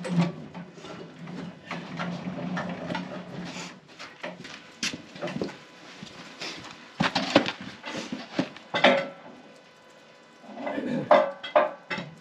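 Irregular knocks and metallic clanks as a log is shifted and reclamped on the steel bed of a Wood-Mizer LT15 sawmill.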